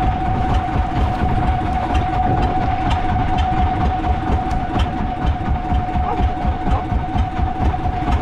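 An engine running steadily, with a rapid low pulsing and a steady whine above it, most likely the fishing boat's motor.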